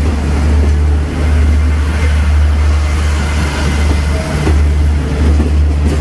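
Passenger train of air-conditioned second-class sleeper coaches rolling past along the platform: a steady, loud low rumble of wheels on the track, dipping briefly twice.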